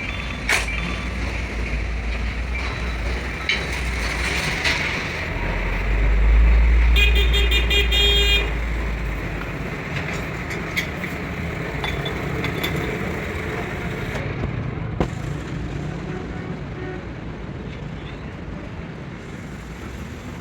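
Passing road traffic with a low engine rumble that swells and fades around the middle, while a vehicle horn sounds for about a second and a half about seven seconds in. A few sharp metallic taps are heard.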